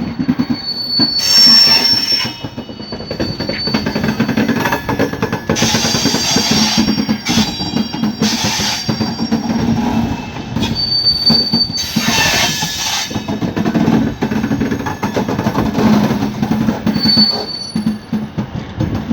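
Train wheels running through a set of points on a curve: a steady rumble with clattering, with brief high-pitched wheel squeals several times and a few louder grinding surges.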